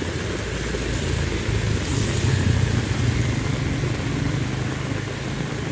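Steady heavy rain with the low rumble of a motor vehicle's engine running nearby, swelling a little louder about two seconds in and easing off again.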